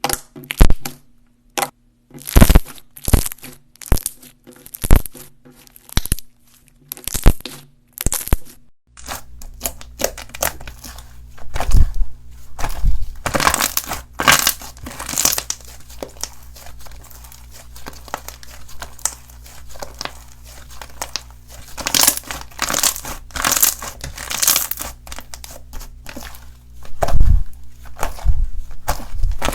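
Slime being squeezed and pressed close to the microphone, making crackling, crunching sounds. At first these come as separate squeezes about once a second; after about nine seconds they become near-continuous crackling over a low hum.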